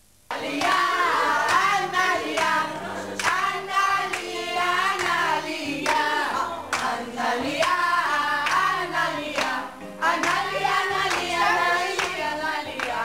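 A group of women singing a song together and clapping along in rhythm; it starts abruptly a moment in.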